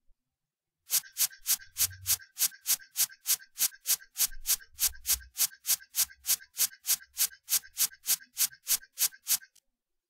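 Typewriter-key sound effect striking at a steady pace of about three keystrokes a second, each with a sharp clack and a light ring. It starts about a second in and stops shortly before the end, accompanying slide text that types itself out letter by letter.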